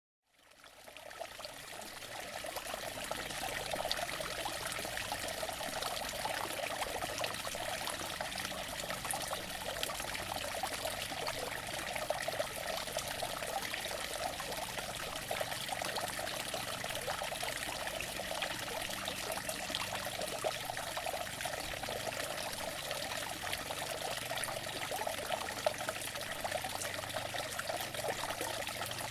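Outdoor water fountain running: a steady splash and trickle of falling water, with many small droplet splashes. It fades in over the first few seconds and then holds even.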